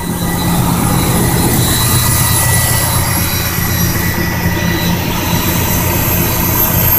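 Semi-truck diesel engine idling steadily, with a faint high whine that slowly rises in pitch. The truck has just started after sitting four days with the fridge running off its battery.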